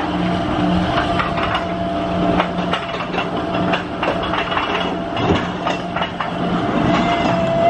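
Roto Jets ride with pumpkin-shaped cars running: the ride machinery hums steadily under a steady whine, with scattered clicks and clanks. The whine rises in pitch near the end.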